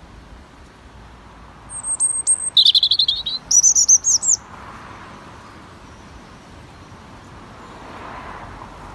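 European robin singing one short phrase, about two seconds in: a thin high note, then a fast warbling run lower down, then a higher twittering run, about three seconds in all.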